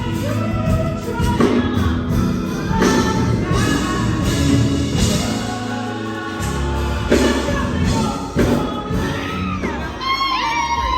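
Gospel music with singing and a choir over a heavy bass. About ten seconds in, children's voices shouting come in over it.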